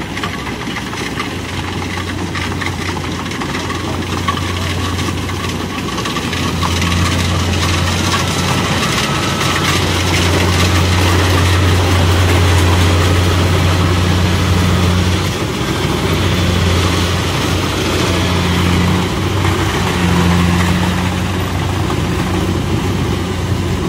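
Tracked rice combine harvester's diesel engine and machinery running steadily as it harvests through a muddy paddy, a constant low hum with a broad clatter on top, growing louder as it comes close about halfway through and easing off again.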